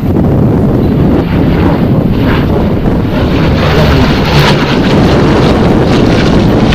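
Heavy wind buffeting the microphone over the Hawker Hurricane's Rolls-Royce Merlin V12 engine; the engine sound grows stronger and brighter about two seconds in.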